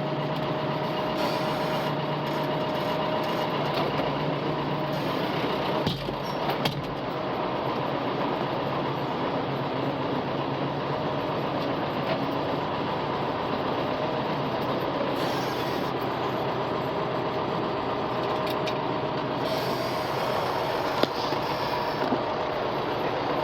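Farm loader engine running steadily under load, with a steady whine over it and a couple of knocks about six seconds in.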